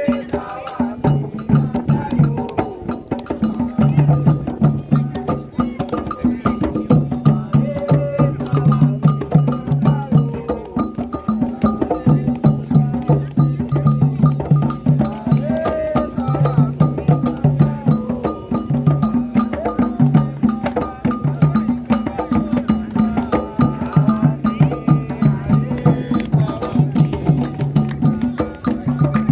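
Candomblé toque: atabaque hand drums beating a fast, steady rhythm, with a struck metal bell keeping the time line.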